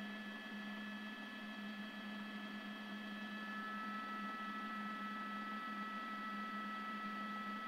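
Steady hum and high whine of a news helicopter heard from inside its cabin, over a constant hiss. One of the high tones grows louder about three and a half seconds in.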